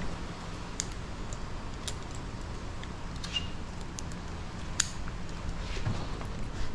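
Scattered light clicks and taps of parts being handled and slid back onto dirt bike handlebars, the sharpest click about five seconds in.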